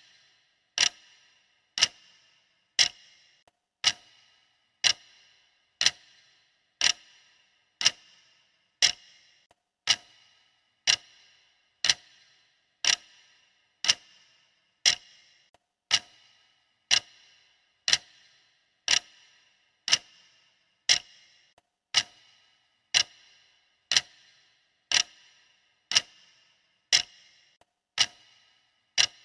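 Clock ticking sound effect of a workout countdown timer: sharp, even ticks at one a second, each with a brief high ring.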